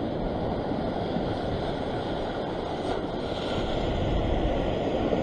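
Surf washing against a rocky sea shore, with wind on the microphone: a steady rushing noise that swells slightly partway through.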